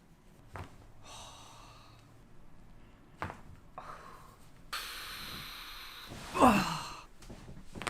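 A chiropractic patient breathing: a breath about a second in, then a long forceful exhale, ending in a loud groaning sigh that falls in pitch. Two short clicks come earlier.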